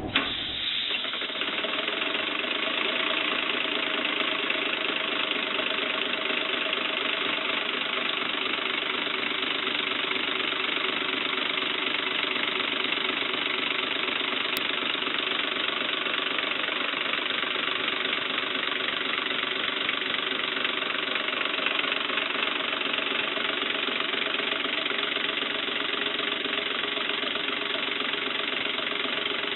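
Home-built six-cylinder compressed-air engine with push-pull slider valves running steadily on shop air: a dense rush of exhausting air over a fast mechanical running noise. It cuts in abruptly at the start. The outer ring is still in contact with the pistons at all times.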